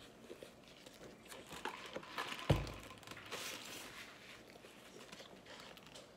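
Mealtime handling noises: small clicks and rustles from cups, utensils and napkins, with one low thump about two and a half seconds in.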